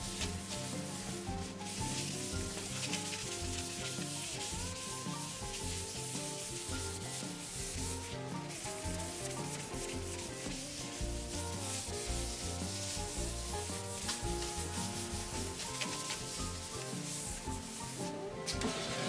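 A rag rubbing oil into a plywood panel in continuous back-and-forth wiping strokes, under background music.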